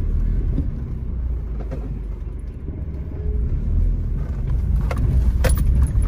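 Car driving slowly over a rough dirt and gravel road, heard from inside the cabin: a steady low rumble of tyres and suspension over stones, with two sharp knocks or rattles near the end.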